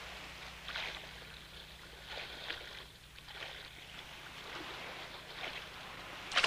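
Water lapping softly against a small sailboat's hull in a calm sea, a gentle swish every second or so over a low steady hum.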